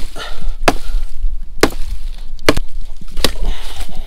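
Wood being chopped: five sharp, separate strokes, roughly one a second, as pieces are cut off a tree for firewood.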